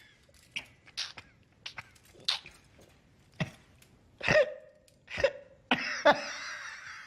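A person coughing in a run of short, sharp bursts, spaced irregularly and louder toward the end. The last cough trails into a longer breathy sound.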